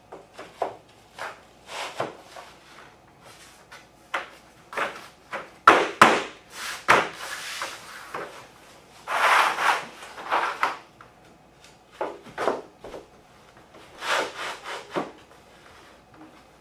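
Drop-and-lock laminate planks being handled, slid over dimpled plastic underlayment and dropped into their locking joints: a run of sharp wooden knocks and clacks with stretches of rubbing, scraping slides. The loudest knocks come about six seconds in, with another cluster near the end.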